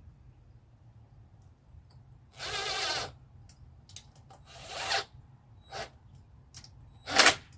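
Intermittent hand-tool and parts-handling noises: a rasping, ratchet-like sound a couple of seconds in, a shorter scraping sound about two seconds later, and a sharp clack near the end.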